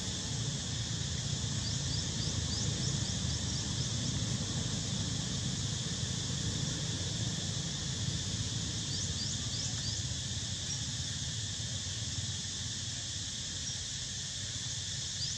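Steady high-pitched insect drone over a low rumble, with two short runs of quick, thin, rising chirps, one a couple of seconds in and one a little past the middle.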